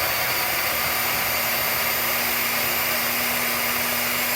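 Electric blender running steadily, blending banana, oats, milk and cocoa into a batter.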